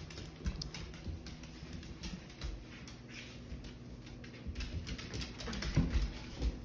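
Dogs' claws clicking and paws scrabbling on a hardwood floor as they play, with soft thumps that grow louder near the end.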